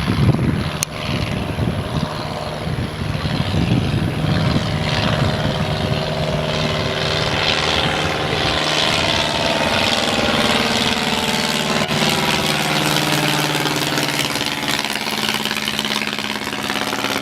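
Aeronca Champ's engine and propeller droning steadily in flight, growing louder toward the middle of the stretch.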